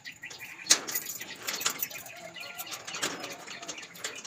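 Keys jangling and metal clicking as the padlock at the bottom of a steel roll-up shutter is unlocked, with one sharp clack a little under a second in.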